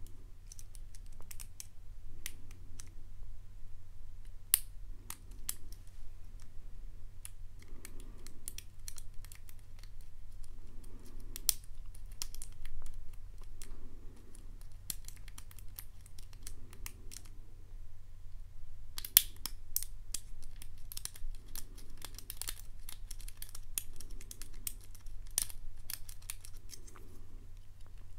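A steel lock pick scraping and clicking against the pins inside a Kwikset-style pin-tumbler lock cylinder held under tension: irregular small metallic clicks as pins are lifted and searched for. The clicks come thicker and faster for a few seconds about two-thirds of the way through, over a steady low hum.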